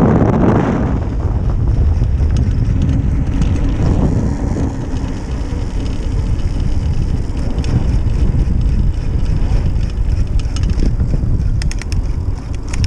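Wind blowing across the microphone of a mountain bike rider descending a downhill trail, with steady tyre and trail rumble. There is a short run of sharp clicks or rattles near the end.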